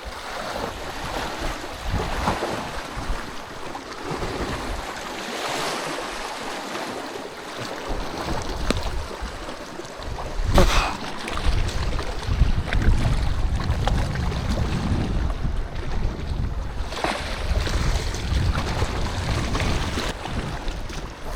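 Sea waves washing on the shore with wind buffeting the microphone, the low rumble growing in the second half. A single sharp knock about ten seconds in.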